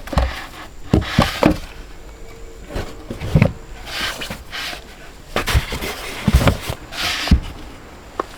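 Camping gear being handled and packed away: a series of irregular knocks and thumps with rustling and scraping in between.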